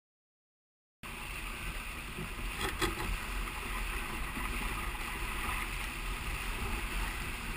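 Figaro racing sailboat's hull rushing through choppy water under sail, a steady wash of water and wind on an onboard microphone, starting about a second in. One brief louder burst near three seconds in.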